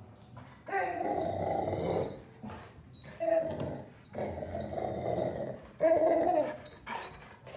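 Golden retriever making weird, Chewbacca-like vocal noises: about five drawn-out, grumbling bouts in a row, the longest over a second.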